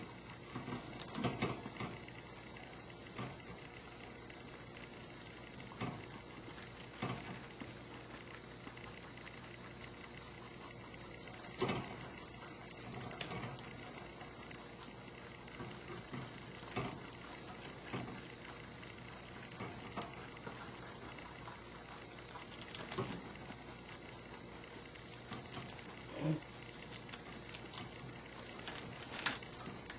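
Domestic rabbit eating lettuce from a wire ball feeder: quiet crunching and short clicks every second or two, over a steady hiss.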